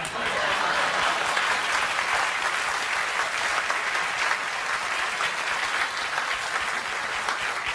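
Studio audience applauding, breaking out all at once and going on steadily.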